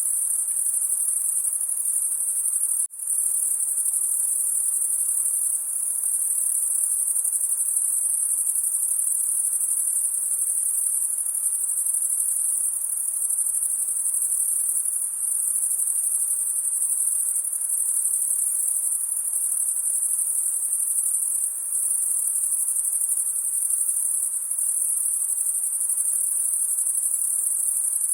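A dense chorus of crickets chirping steadily on a summer night, a continuous high-pitched shrill. The sound dips for a moment about three seconds in.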